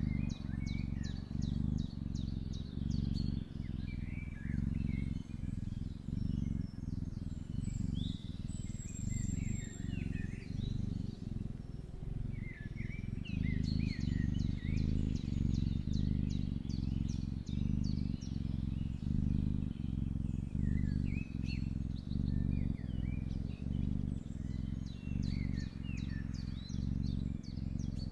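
Kitten purring steadily, a low hum that swells and dips in an even rhythm with its breathing. Birds chirp and trill in the background.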